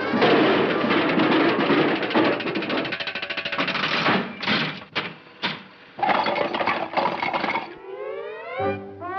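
Cartoon sound effects over orchestral scoring: a dense, noisy clattering commotion with a few sharp hits around the middle, then a rising slide just before pitched brass-band music resumes.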